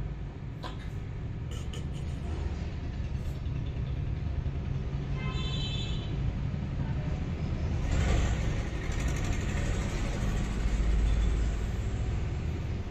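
A steady low rumble, growing louder about eight seconds in and again near the end, with a few light clicks in the first two seconds and a brief high-pitched tone about five seconds in.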